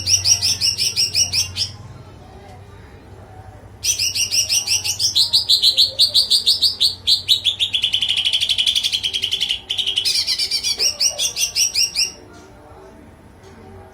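A pet songbird singing in fast, rapidly repeated high chirps, two bouts of trilling; in the longer second bout the notes drop lower in pitch partway through, then rise again before it stops about two seconds before the end.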